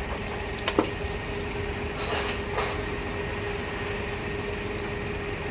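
Steady mechanical rumble with a faint steady hum joining about two seconds in, and light metallic clicks about a second in and again near two seconds.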